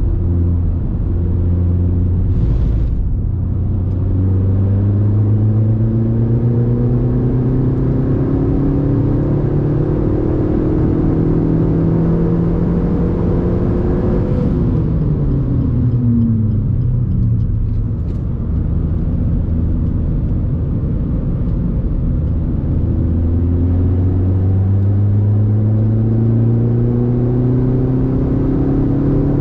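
Suzuki Swift Sport's 1.4 Boosterjet turbo four-cylinder, fitted with an aftermarket Ragazzon exhaust, heard from inside the cabin at speed. The engine pulls hard with its pitch climbing steadily, drops away for a few seconds about halfway as the driver lifts off, then climbs again under acceleration.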